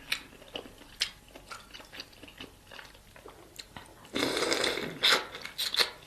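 Close-miked eating of king crab legs: scattered sharp clicks and chewing. A louder, noisy burst lasting under a second comes about four seconds in.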